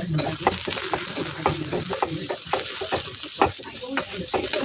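Food sizzling in a frying pan while a utensil stirs it, with frequent irregular clicks and scrapes of the utensil against the pan.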